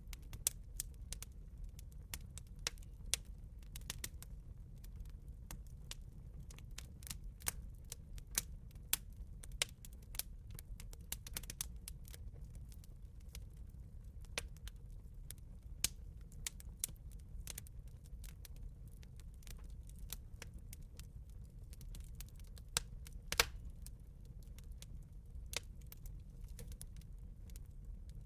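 Wood fire crackling and popping: irregular sharp snaps, several a second, over a low steady rumble of the burning fire.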